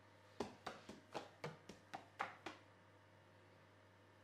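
A hand tapping on books lying on a counter, about nine quick taps in a row in a little over two seconds, then stopping.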